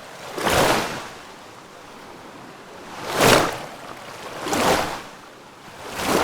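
Water rushing in repeated surges: each swell builds and falls away within about a second, over a quieter steady hiss. There are three surges, and a fourth peaks near the end.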